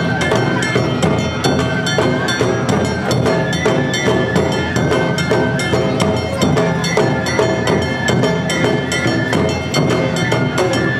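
Awa odori narimono band playing: a bamboo flute's melody over a steady beat of kane hand gong, shime-daiko and ōdaiko drums.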